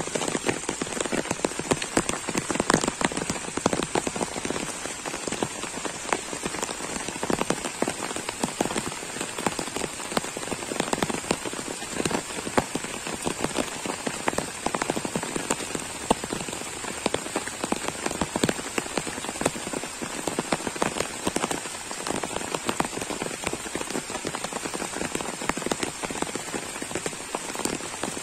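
Heavy rain falling steadily on a pond's surface and the leaves around it, a dense, even patter of countless drops.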